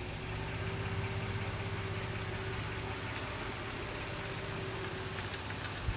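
Pickup truck engine running steadily, a low, evenly pulsing hum with no revving.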